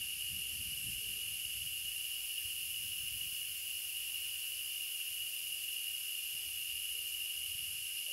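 Steady chorus of tropical forest insects: an unbroken high-pitched drone with a thinner, higher hiss above it.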